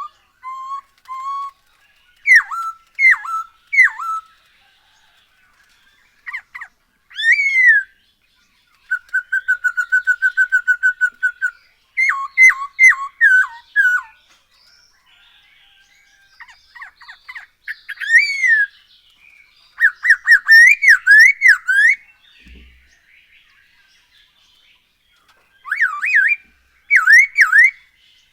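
Masked laughingthrush (poksay hongkong) singing loud whistled phrases with sliding notes and pauses between them, including a fast run of short repeated notes about nine seconds in.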